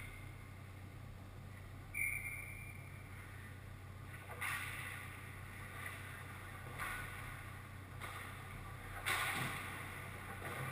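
Ice rink ambience: a steady low hum, a short high tone about two seconds in, and several swishing scrapes of skates on ice, the loudest about nine seconds in.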